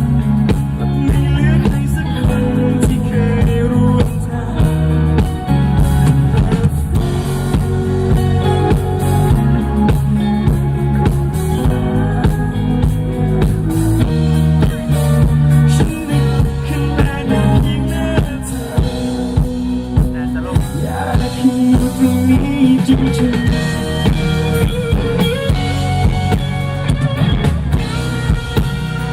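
Live band playing an instrumental passage with no singing: drum kit with steady kick and rim hits under guitar and bass.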